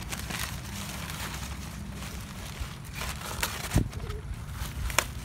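Steady low rumble with faint ticks, and two sharp knocks about four seconds in and near the end.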